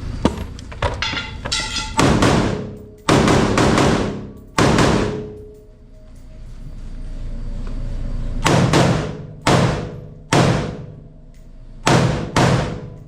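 A string of 5.56 AR-15 rifle shots, fired singly and in quick pairs, each ringing out with a long echo in the indoor range. There are two bursts of fire with a pause of about three seconds between them.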